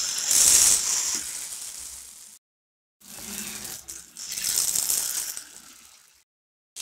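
Batter-coated sweet balls deep-frying in hot oil in a kadai: a loud sizzle as they go into the oil, fading away, then after a moment of dead silence a second sizzle that also fades.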